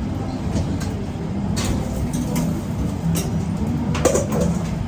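Steady low mechanical hum of food truck equipment running in a cramped kitchen, with a few light clicks and clatters of containers and utensils being handled.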